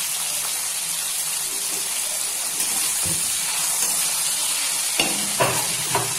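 Tomato pieces sizzling steadily in hot oil in a wok. In the second half there are a few knocks and scrapes of a steel spatula stirring them.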